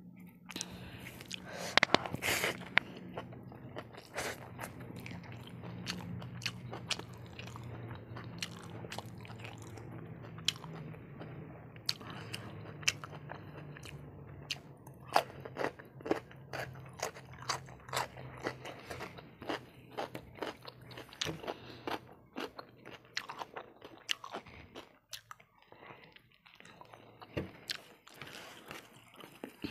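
Close-miked chewing and biting of food, with many crisp crunches and wet mouth clicks. The crunching is densest about halfway through, after a bite from a slice of raw cucumber.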